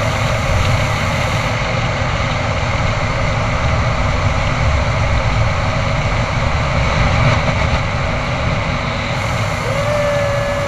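Steady, loud wind rushing and buffeting over a GoPro's microphone as a wingsuit flies at speed. Near the end a single held tone comes in and wavers.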